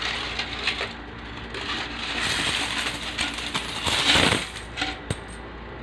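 Coins clattering and rattling with papery rustling as a savings box of money is emptied out, loudest about four seconds in.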